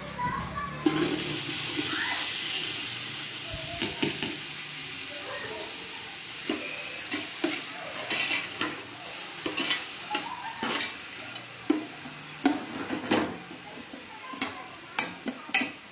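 Onions frying in hot ghee in a cooking pot. The sizzle starts suddenly about a second in, as the onions hit the fat, and slowly settles. A spoon clinks and scrapes against the pot as they are stirred.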